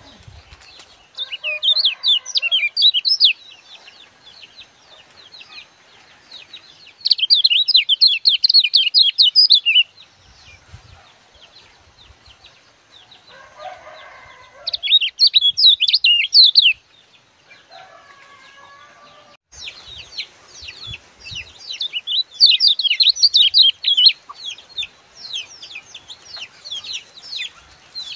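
Caged white-eye (kecial kuning) singing in bouts of fast, high-pitched chattering warbles. There are three short bursts of two to three seconds each, then a longer, denser run of about eight seconds near the end.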